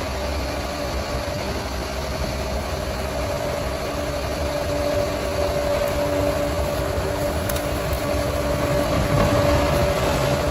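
Bulldozer's diesel engine running steadily under load, a low rumble with a steady whine on top.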